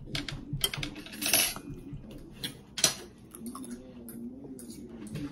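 Cutlery clinking against plates and dishes at a dinner table: a run of short sharp clinks, two louder ones with a brief ring, about a second in and near the middle.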